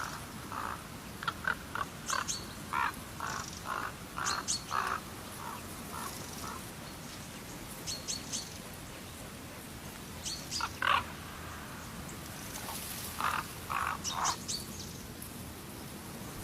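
Birds calling in the wild: runs of short, repeated chirps, with higher, thin paired notes now and then, over a steady background hiss. The calls come in a run over the first six seconds or so, then again in short groups around eleven and fourteen seconds in.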